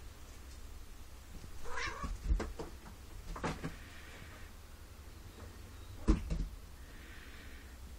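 A cat gives a short meow about two seconds in. Then comes a run of knocks and thumps as it scrambles down a carpeted cat tree, with the loudest thump about six seconds in.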